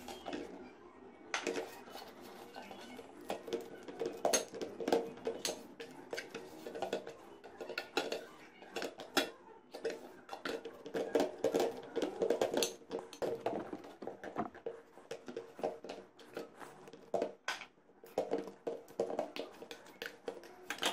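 Semolina and flour dough being kneaded by hand in a stainless steel bowl: many irregular short knocks and scrapes of dough and hand against the metal.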